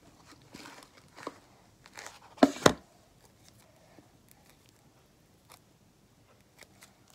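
Fluffy blue slime being stretched and handled, making small sticky crackles, with two sharp loud pops close together about two and a half seconds in.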